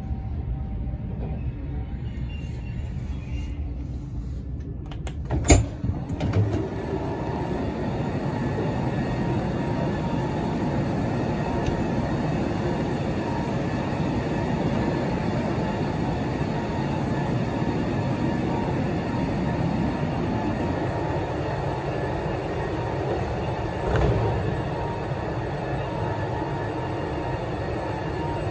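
Commuter train standing in an underground station, its equipment giving a steady hum and rushing noise. There is a sharp knock about five and a half seconds in, after which the noise is louder, and a smaller thump near the end.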